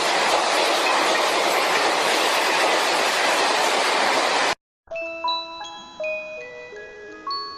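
Loud, steady static hiss that cuts off abruptly about four and a half seconds in. After a brief silence, a slow melody of single bell-like notes at changing pitches begins.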